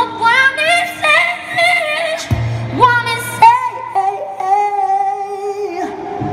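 A woman singing live into a microphone over acoustic guitar, moving through quick vocal runs, then holding one long note with vibrato near the end.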